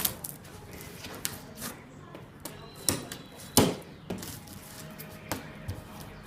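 Scattered knocks and thumps from handling a boxed microwave and its packaging, about five in all, the loudest a little after halfway, with faint voices in the background.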